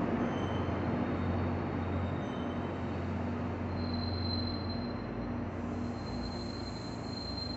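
New Jersey Transit commuter train rolling slowly into its final station, its running noise gradually fading, with a thin high squeal setting in about four seconds in.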